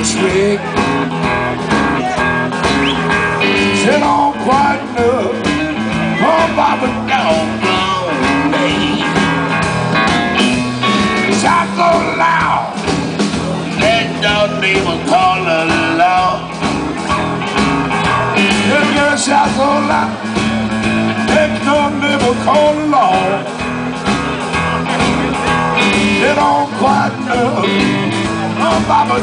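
Blues-rock band playing live: electric guitars over a drum kit, with a lead line of bending, wavering notes.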